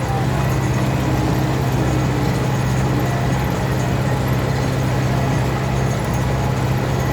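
Belarus 820 tractor's four-cylinder diesel engine running steadily under load while ploughing, a constant low hum with no change in speed.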